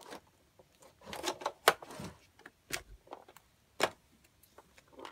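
Plastic clicks and knocks from a toy restaurant playset being handled: a card slid into its slot and the pieces tapped, a few separate sharp clicks with a softer cluster between one and two seconds in.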